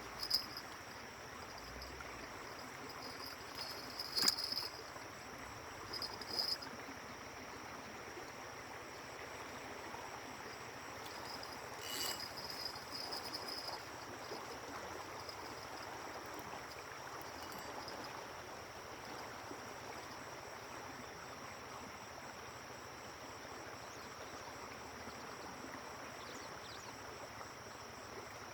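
Stream water flowing steadily, with high insect chirping that flares up in short bursts a few times. A few sharp clicks stand out, about four seconds in and again around twelve seconds.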